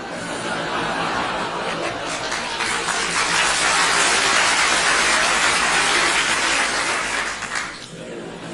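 Audience laughing together, the laughter building over the first few seconds to a loud peak and then dying away sharply near the end.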